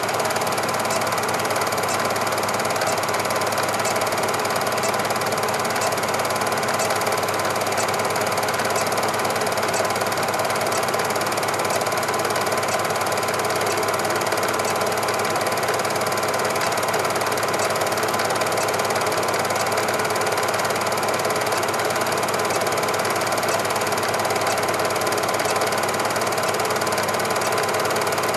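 Steady whirr and clatter of a cine film projector running, with faint regular ticks from its mechanism.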